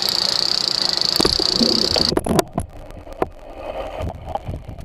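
Fishing reel drag buzzing steadily as a hooked queenfish pulls against it, cutting off suddenly about two seconds in; scattered clicks and knocks follow.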